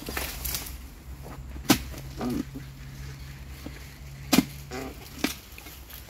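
Harvesting chisel (dodos) on a long pole striking and cutting into oil palm frond bases: two hard strikes with a few lighter knocks. A brief low voice-like sound follows each main strike, over a steady low hum.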